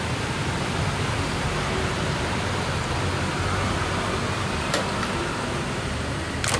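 Oil-less air compressor running with a steady rushing noise and low hum, with a sharp click about two-thirds of the way through and another near the end.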